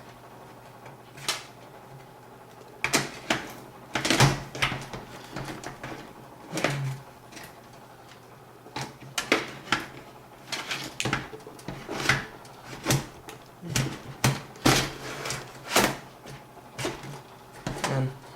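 An optical drive being worked into the drive bay of a PC case: a run of irregular clicks and knocks, several clustered close together in places.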